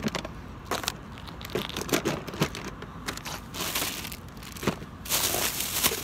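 Plastic grocery bag rustling and crinkling while items are rummaged out of it, with scattered light clicks and knocks of packaging being handled. The loudest rustle comes near the end.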